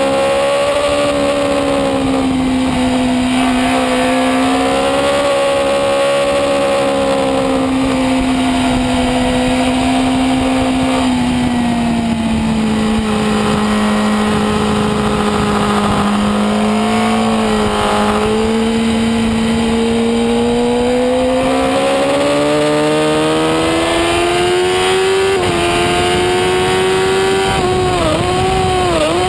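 Race sport bike's engine at high revs heard from onboard, its pitch slowly rising and falling through the corners, with wind rushing over the fairing. Near the end the pitch dips sharply twice as it changes gear.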